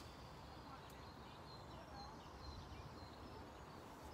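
Faint lakeside ambience: a low steady rumble with a few short, distant bird chirps.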